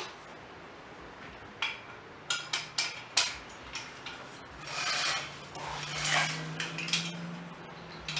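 Steel parts of a lift jack knocking and clinking as they are handled, a handful of sharp knocks, then scraping and rubbing of metal on metal as the jack's lifting arm is moved into place.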